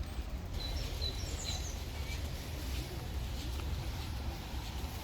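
Small birds chirping, a cluster of short high chirps in the first two seconds, over a steady low rumble of outdoor background noise.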